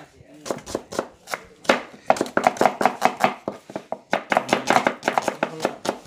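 Knife slicing red onion on a wooden cutting board: a quick, uneven run of cutting taps, several a second, with a couple of short pauses.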